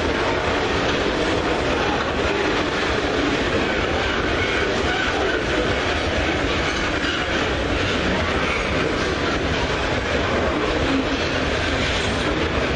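Loaded iron-ore gondola wagons rolling past at close range: a steady noise of steel wheels and trucks running on the rails.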